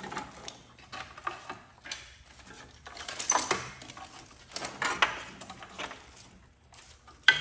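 A burnt car wiring harness being handled and pulled loose: the wires and plastic connectors rustle and clatter against each other and the engine bay in irregular spells, with a sharp click near the end.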